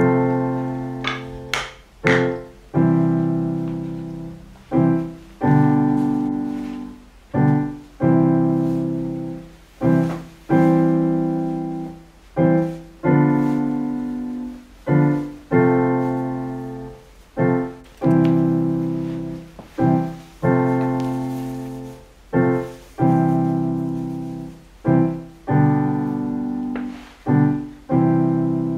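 Slow solo piano background music: chords struck about every one to two seconds, each left to ring and fade.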